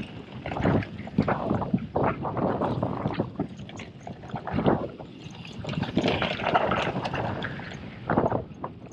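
Orbea Rallon full-suspension mountain bike riding fast down a rough gravel and rock trail: tyres crunching over stones and the bike clattering with uneven knocks from the bumps, with a steady rush of rolling and wind noise underneath.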